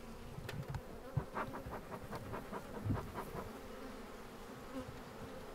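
Honeybees buzzing steadily around an opened wooden hive, with a run of light knocks and clicks in the first three seconds as the hive cover is lifted and handled.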